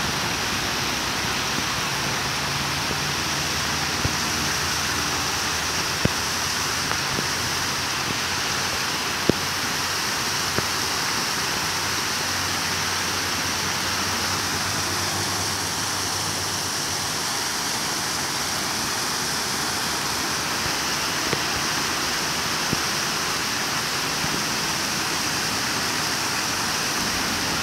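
Muddy floodwater pouring down a stepped concrete weir, a steady rushing of water with a few brief clicks.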